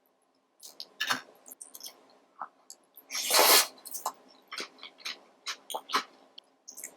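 Close-miked eating sounds of a mukbang eater working through saucy king crab: scattered wet clicks and mouth smacks, with one loud, longer hissing burst about three seconds in.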